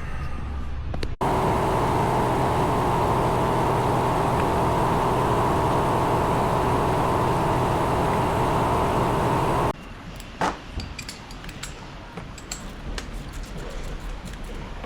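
A loud steady whooshing noise with a low hum, starting abruptly about a second in and cutting off abruptly after about eight seconds. It is followed by light metallic clicks and taps of hand tools working out a spark plug end that has broken off in the plug well.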